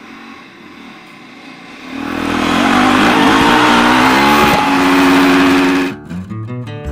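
A motor vehicle engine revving hard about two seconds in, its pitch climbing and then held high before it cuts off abruptly about six seconds in. Music-like tones follow near the end.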